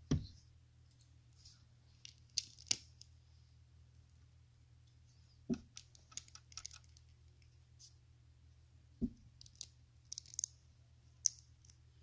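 LEGO plastic plates and tiles clicking and tapping as they are handled and pressed together: scattered sharp clicks, with a few duller knocks near the start, about halfway and about three-quarters of the way through. A faint low hum runs underneath.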